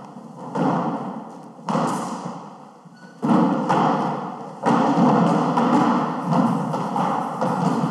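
Performers on a stage making rapid thuds and knocks, in surges that start suddenly and fade away, about four times in the first half, then keeping up a denser run.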